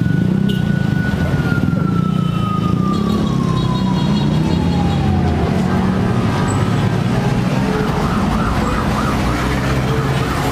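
Steady low rumble like vehicle or traffic noise, with a single siren-like tone that holds for about a second and a half and then slowly falls in pitch before fading out, about five seconds in.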